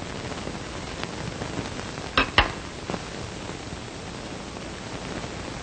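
Steady hiss from an old television soundtrack, with two short knocks a little over two seconds in and a few fainter ticks.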